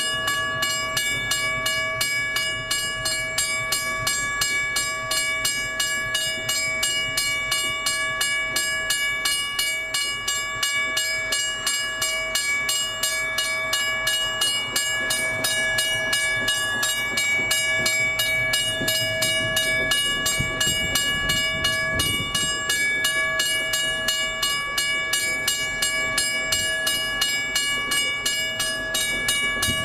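Wabco mechanical railway level-crossing bell ringing continuously: a fast, even stream of metallic strokes over a steady ringing tone, a sign the crossing is active.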